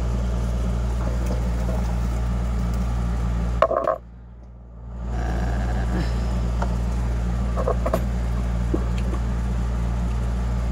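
Steady low background hum that cuts out for about a second, four seconds in, then fades back. A few faint handling sounds come through as she reaches across the table.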